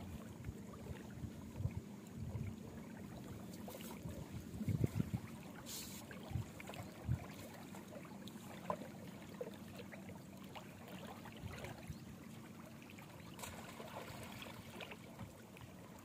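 Riverbank ambience: scattered low thumps and knocks from footsteps and handling of a fish net, over a faint steady low hum and trickling water.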